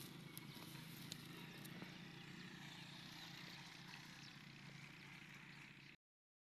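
Near silence: a faint steady outdoor background with a few light ticks in the first couple of seconds, cutting to dead silence near the end.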